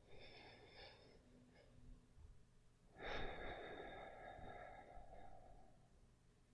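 A man breathing softly close to the microphone: a short faint breath near the start, then a longer, louder breath about three seconds in that fades out over a couple of seconds.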